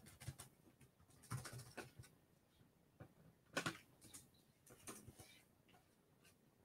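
Near silence broken by faint scattered clicks and light scuffs, with a small cluster about a second in and the sharpest click a little past halfway.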